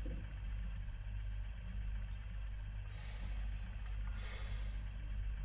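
A steady low hum, with faint breaths close to a handheld microphone about three seconds in and again a little after four seconds.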